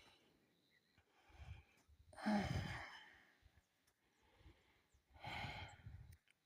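A person breathing out in heavy sighs: a strong one about two seconds in and another about five seconds in, with a softer breath before the first.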